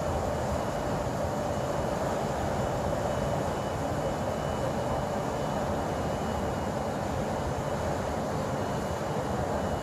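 Steady mechanical drone with a constant hum, unchanging in level throughout.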